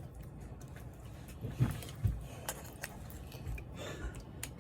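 Light handling noise: scattered soft clicks and rustles, with two louder thumps about a second and a half and two seconds in.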